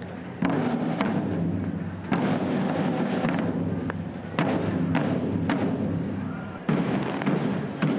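A group of parade drummers beating large side-slung drums in a marching rhythm, a dense rolling beat with heavy accented strokes every second or two.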